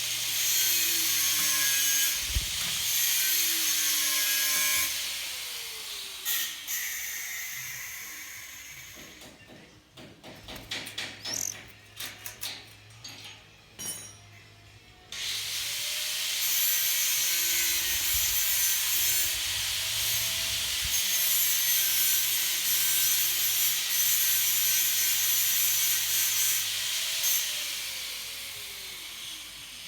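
Nearby power-tool noise, a loud hissing, grinding run with a wavering motor tone. It runs for the first few seconds and again through most of the second half. In between come a stretch of sharp knocks and clatter and a short high chirp.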